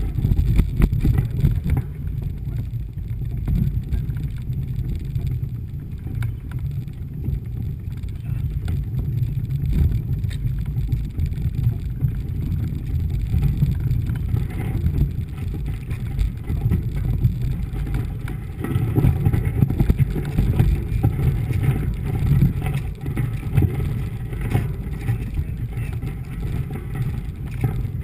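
Mountain bike rolling over a rough dirt and gravel road, picked up by a camera mounted on the bike: a steady low rumble of tyre noise and frame vibration.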